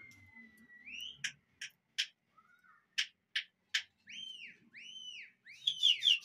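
Pigeon flyers whistling and clicking to work a circling flock. A long falling whistle opens, with sharp clicks coming every half second or so. Two arched whistles follow about four seconds in, then a quick run of short whistles near the end.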